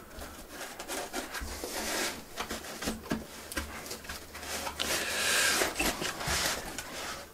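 Hands handling parts in a foam-packed cardboard kit box: short knocks and clicks, then a denser rustle of plastic bags and foam about five seconds in as a foam layer is gripped and lifted.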